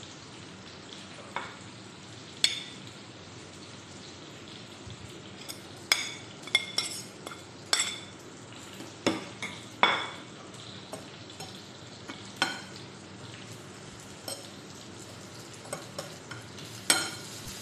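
Metal fork clinking and scraping against a ceramic plate while mixing breadcrumbs and grated parmesan, in scattered sharp clinks that ring briefly over a steady hiss.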